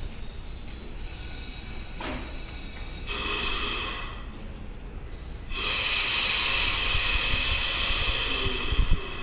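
Compressed air hissing from a Seibu 101-series train's air brake system. A short burst about three seconds in is followed by a longer, louder release from about halfway through until near the end.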